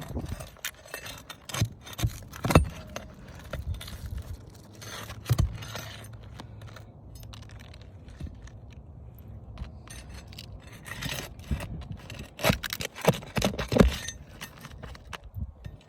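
Metal parts and tools clinking and scraping during hand repair work, in irregular knocks and clinks, with a busier run of clinks a few seconds before the end.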